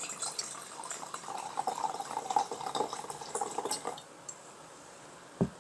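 White wine poured from a bottle into a wide Burgundy-style glass, with a splashing, gurgling flow for about four seconds. Near the end comes a single low knock as the bottle is set down on the counter.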